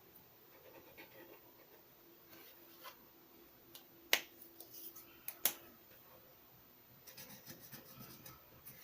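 Alcohol ink marker handled and drawn across paper. Two sharp clicks of the marker cap come about four and five and a half seconds in, with faint rubbing and scratching of the tip on paper around them and near the end.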